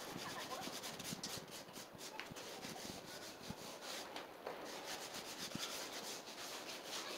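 Gloved hands rubbing over vinyl sheet flooring in a fast, uneven run of scuffing strokes.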